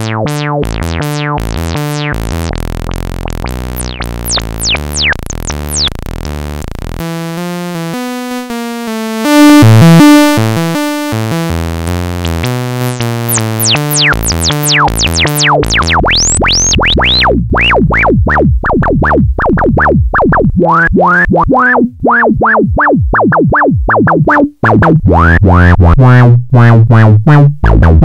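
Sequenced synthesizer line, a sawtooth wave played through an SE 4075 Eurorack filter whose controls are being turned by hand, so the tone of the notes keeps shifting between muted and bright. The sound swells loud and bright about ten seconds in. From about sixteen seconds on each note is a sharp pluck with a resonant peak sweeping downward, growing louder toward the end.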